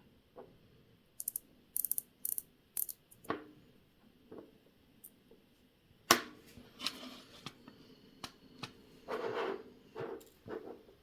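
Small metal tools and watch parts clicking and tapping on a watchmaker's bench: a few quick runs of sharp clicks, a loud knock about six seconds in, then scattered taps and short handling noises.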